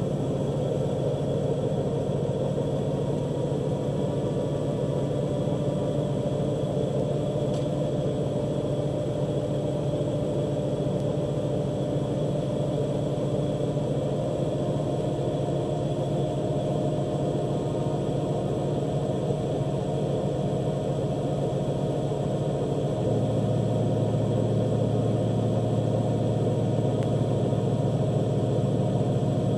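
Farm harvest machine engine running steadily during soybean harvest, a constant hum. About three quarters of the way through, the low hum shifts slightly deeper and a little louder.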